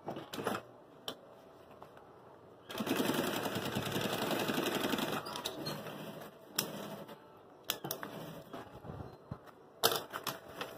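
Industrial sewing machine stitching a seam in a fast, even run of about two and a half seconds, starting a little under three seconds in. Several sharp clicks from handling the fabric and machine come before and after the run.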